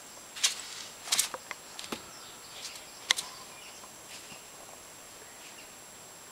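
A puppy and an adult dog at play: a handful of sharp clicks and short scuffs, bunched in the first three seconds.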